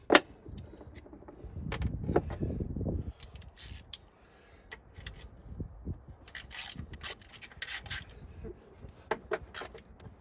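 Hand work on car parts: a sharp click at the start, then intermittent rubbing and scraping with light knocks and clicks.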